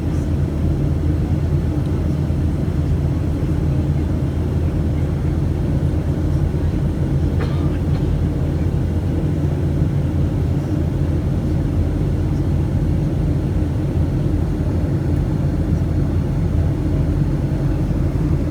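Steady low rumble of a Boeing 757-200 heard from inside the cabin: engine noise and airflow with a constant low hum.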